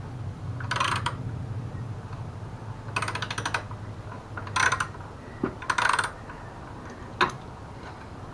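Hand ratchet wrench clicking in several short spells of rapid clicks while bolts are turned, with one sharp single click near the end.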